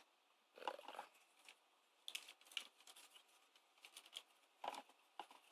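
Faint clicks and taps of hard plastic toy parts being handled, in a few short clusters.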